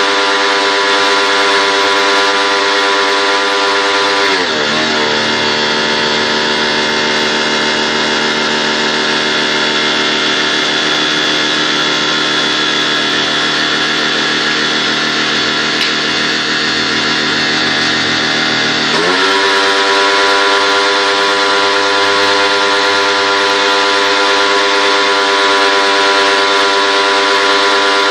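Pressure washer motor running with a loud, steady whine. Its pitch drops about four seconds in and holds lower until it climbs back about nineteen seconds in, as the motor slows under load while spraying and speeds up again when the trigger is released.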